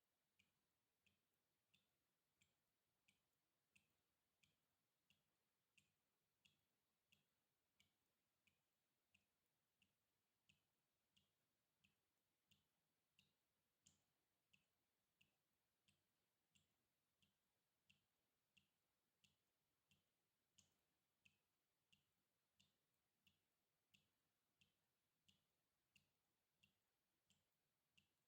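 Water dripping steadily, faint, about three drops every two seconds, each drop a soft low plop with a higher plink.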